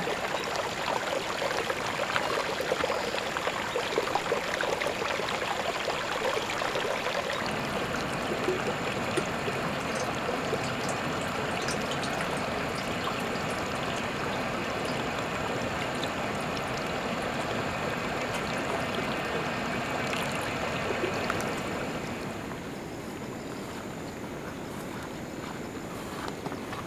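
Spring water running out of a mountainside as a small stream, a steady rushing splash that falls away to a quieter hiss near the end.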